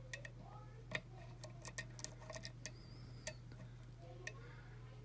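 Small, sharp clicks of a lock pick and tension wrench working the pins of a pin-tumbler challenge lock while single-pin picking, scattered irregularly with a quick cluster about two seconds in.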